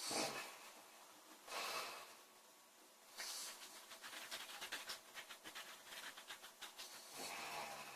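A woman snoring in her sleep: a few noisy breaths, then a long rattling snore that flutters in rapid pulses for about four seconds, starting about three seconds in.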